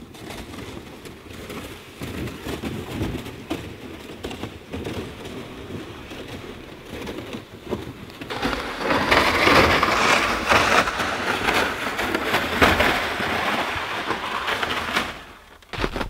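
Boots crunching on frozen, crusted snow as a person walks, without snowshoes. The crunching is faint at first and grows much louder about halfway through.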